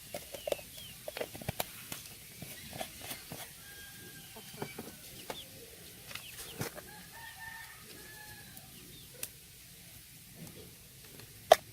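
Faint calls of domestic fowl, with one drawn-out arching crow about seven seconds in, among scattered light clicks and knocks. A single sharp knock near the end is the loudest sound.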